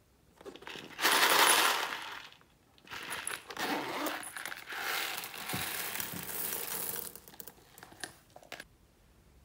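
Small beads and glitter poured out of a pouch into a clear tray of slime. There is a loud rush of tiny hard pieces about a second in, a longer steady pour from about three to seven seconds, and a few faint ticks after it.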